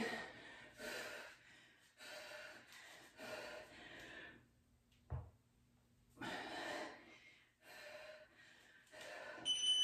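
A woman breathing hard during kettlebell swings: sharp, noisy exhales about once a second. There is a single dull thump about five seconds in and a brief high electronic beep just before the end.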